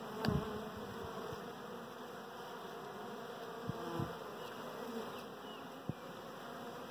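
Honey bees buzzing at a hive entrance: a steady hum of many bees, with a few brief louder buzzes as single bees fly close by.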